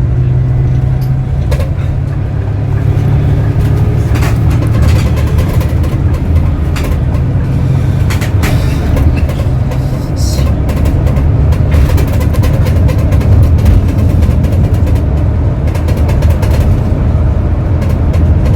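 Coach engine running with a steady low drone under a wash of noise, heard inside the passenger cabin, with scattered light clicks.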